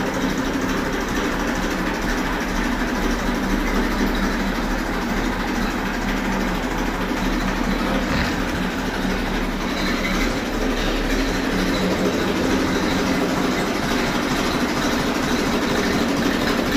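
Massey Ferguson 1035 DI tractor's 2400 cc Simpson diesel engine running steadily while the tractor is driven forward.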